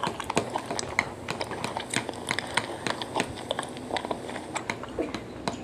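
Eating sounds close to the microphone: a string of irregular small clicks, taps and smacks from chewing and from handling a plastic bowl at the table.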